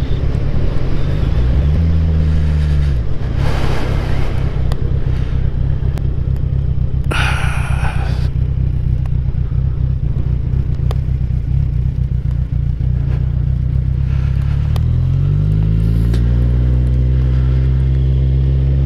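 Motorcycle engine slowing down, with a short blip of revs, then idling with a low pulsing rumble. A brief rush of noise comes about seven seconds in. Near fifteen seconds the engine speed rises and holds steady.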